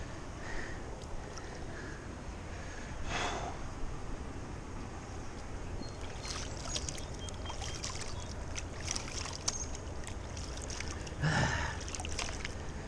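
Water sloshing and trickling at the shoreline over a low, steady rumble, with two louder splashy swishes, one about three seconds in and one near the end, and scattered light ticks in between.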